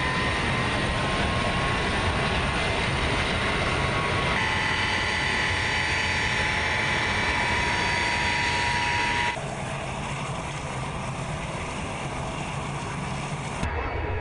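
Ilyushin Il-76 transport's four turbofan engines running, a dense steady noise with a high steady whine. The whine steps to a different pitch about four seconds in, and the whole sound drops somewhat about nine seconds in.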